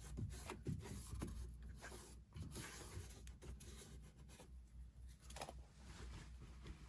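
Faint, irregular rubbing with a few light knocks: a cloth wiping dust out of a condensing tumble dryer's condenser compartment.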